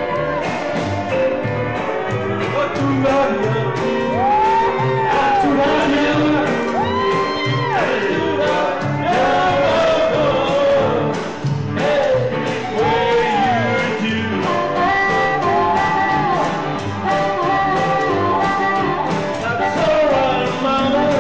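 Live rockabilly band playing: a singer's voice over electric guitar, upright double bass and a steady beat.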